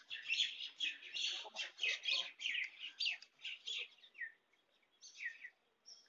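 Birds chirping in a quick, dense string of short calls that thins out after about four seconds to a few separate chirps sliding downward.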